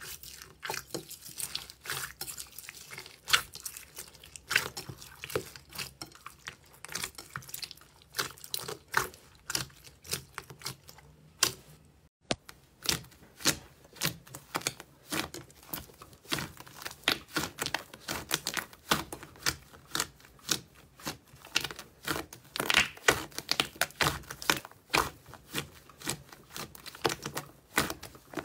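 Slime being squished and pressed by hand: a dense run of irregular wet clicks, pops and crackles, first from golden slime packed with small foam beads. After a brief break about twelve seconds in, the same clicking and popping comes from a soft, puffy slime being pressed.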